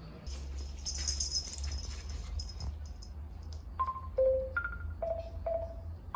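Digital door lock keypad being pressed to enter a code: a string of short beeps, each at a different pitch, about two a second, starting about halfway through. Before them, rustling handling noise with a low rumble.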